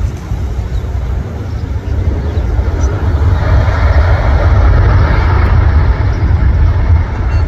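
Boeing 737 MAX's CFM LEAP-1B jet engines on the landing roll just after touchdown, a deep rumble and hiss that swells to a loud roar about three seconds in, as engine power comes up for braking (reverse thrust).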